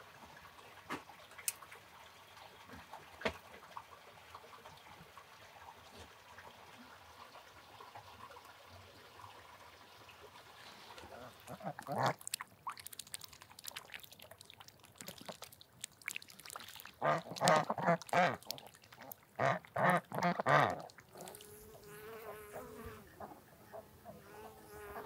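White domestic ducks quacking: a string of loud, harsh calls in clusters in the middle of the stretch. A few faint clicks come before them, and a faint steady buzz of honeybees follows near the end.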